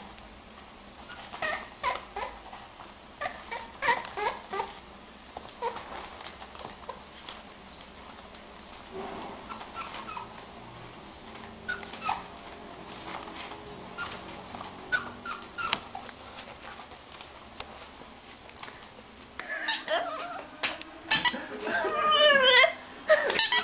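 Newborn puppies squeaking and whimpering in many short, high calls. About 20 seconds in, a French bulldog takes over with louder, drawn-out howling calls that waver up and down in pitch.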